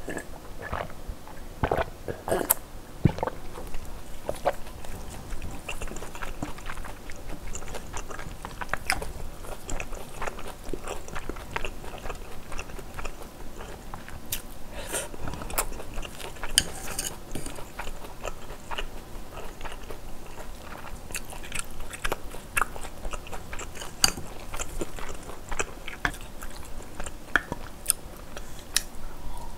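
Close-miked eating sounds: a person chewing and biting mouthfuls of spicy braised kimchi with pork and glass noodles, with irregular wet smacks and sharp clicks.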